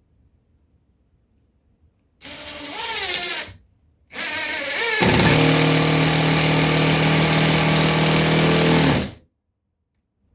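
Power drill driving screws into subfloor. A short run of about a second rises in pitch and stops. Then a longer run of about five seconds speeds up to a steady pitch and cuts off suddenly.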